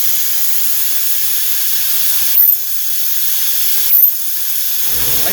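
Vacuum pump hissing steadily as it draws a brake fluid sample from the car's brake system, with a short louder puff of air twice, about a second and a half apart.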